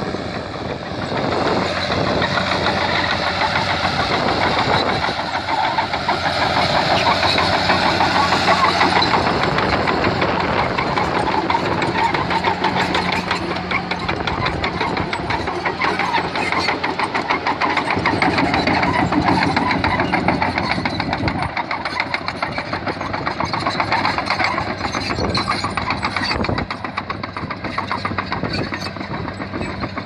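Caterpillar D5N crawler bulldozer's diesel engine running steadily under load, with rapid clanking from its steel tracks as it moves over the earth. The engine note shifts a few times as it works.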